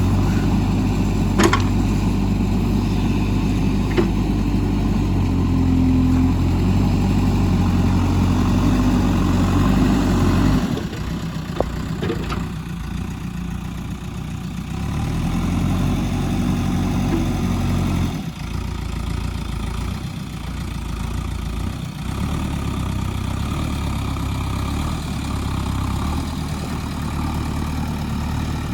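Diesel engine of a JCB backhoe loader running under changing load, with a few sharp metallic clanks. The engine sound drops and changes abruptly about a third of the way in and again past halfway.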